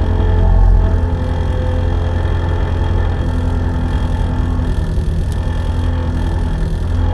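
1975 Ford Escort Mk2's Cosworth BDA four-cylinder engine idling steadily with the car standing still, heard from inside the bare rally cabin.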